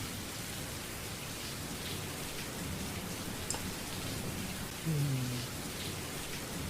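Looped rain recording playing as the white-noise sound: a steady hiss of falling rain.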